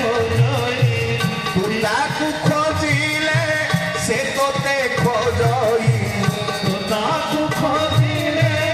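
A man singing a devotional song into a microphone, his voice gliding through a melody over a steady, regular drum beat.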